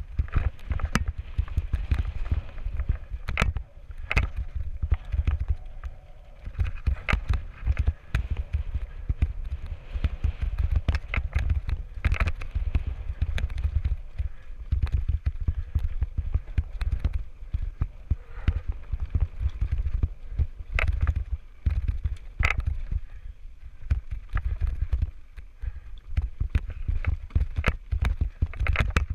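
Mountain bike rattling over rocky singletrack on a descent: irregular sharp knocks and clicks of the bike and tyres hitting rock, over a constant low rumble of wind and vibration on the bike-mounted camera.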